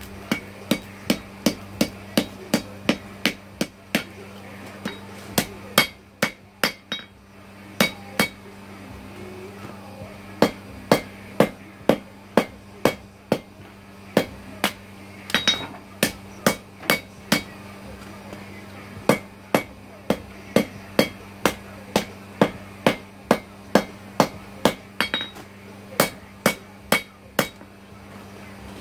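Hand hammer striking red-hot knife steel on an anvil, about two blows a second in runs with short pauses between. The smith is drawing out and stretching the blade.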